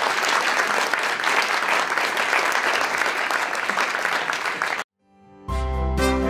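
Audience applauding, cut off abruptly about five seconds in. After half a second of silence, music starts near the end.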